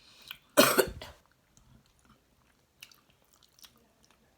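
Close-up eating sounds: biting and chewing sushi, with one loud sudden burst about half a second in, then faint mouth clicks.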